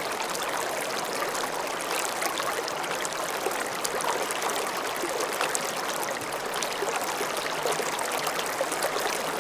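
Slow-moving stream of water flowing steadily, with a continuous babble and small trickling splashes.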